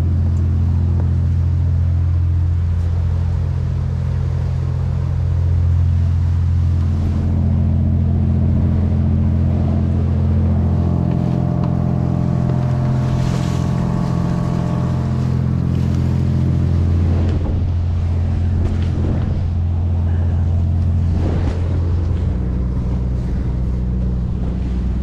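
Trawler's engine running steadily under way, with water along the hull; its low note shifts a little near the end as the boat slows to dock.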